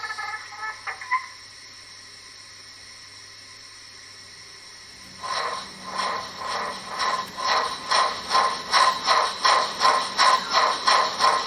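Sound decoder in a Gauge 1 brass model of a Bavarian D XII steam locomotive playing steam exhaust chuffs through its loudspeaker as the model starts moving. The chuffs begin about five seconds in and quicken to about three a second.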